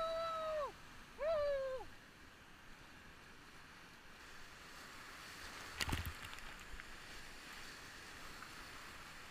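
Whitewater of a big-water rapid rushing around a kayak, a steady noise of churning water. Two long, high-pitched shouts come in the first two seconds, and a sharp knock about six seconds in.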